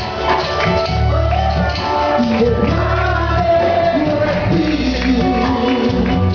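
Live congregational worship music: voices singing over a band with bass and tambourine, in a large hall.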